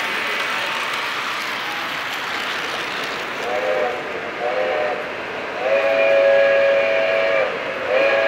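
Lionel O-gauge model train's whistle sounding a chord: two short blasts about three and a half seconds in, then a long blast, then another long one starting near the end. Underneath is the steady noise of model trains rolling on the track.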